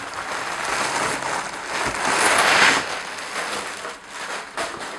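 Clear plastic bag rustling and crinkling as a flat-screen TV is pulled out of it, loudest about halfway through.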